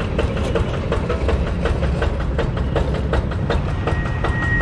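Yanmar TF85 single-cylinder diesel engine on a walk-behind hand tractor idling with a fast, even knock.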